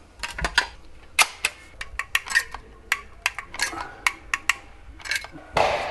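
Irregular sharp clicks and light clattering of hard objects being handled, with a louder rustling scrape near the end.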